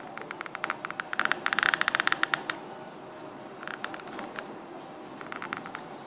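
A calligrapher's reed pen scratching across paper while writing Arabic letters, in three bursts of quick scratchy strokes: the longest and loudest from about a second in, shorter ones near four seconds and just before the end.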